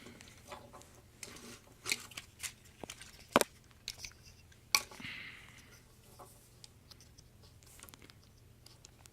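Small hard plastic toy parts being handled: a scattering of sharp clicks and taps, with a short soft rustle about halfway through.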